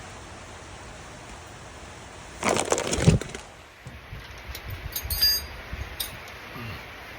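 Tools and metal parts being handled during hand work on a vehicle differential: a short scuffing noise about two and a half seconds in, then several light metallic clinks.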